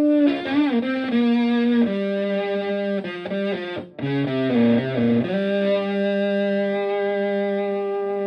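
Stratocaster electric guitar played through a Tone Bender MkI fuzz pedal into a Twin Reverb-style amp. A held fuzz note bends near the start, then comes a quick run of notes with a brief gap near the middle, then a long sustained fuzz note.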